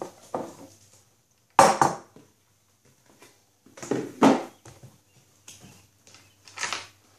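A handful of short rustles and knocks from things being handled close to the microphone, the loudest a little under two seconds in.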